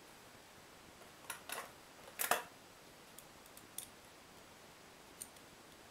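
Clicks and clinks of a steel ball bearing and a steel vernier caliper being handled. A couple of clicks come just over a second in, the loudest a little over two seconds in, then a few faint ticks.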